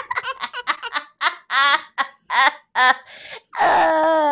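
A person's voice laughing in short, rapid bursts with gaps between them, performed for a jackalope puppet. Near the end, a longer wavering voiced cry.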